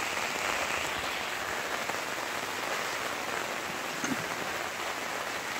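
Steady rain pattering on the fabric roof of a mosquito-net camping shelter, heard from inside the shelter.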